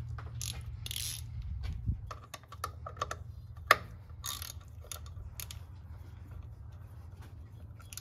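Hand socket ratchet clicking in short, irregular runs as the bolts of a new neutral safety switch on a 2006 Ford F-150's transmission are tightened, with one sharper click a little before the middle.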